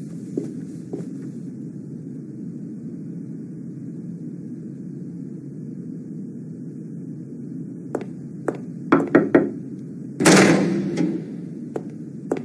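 A few quick knocks on an office door, followed by a louder thump a second later, over a steady low hum.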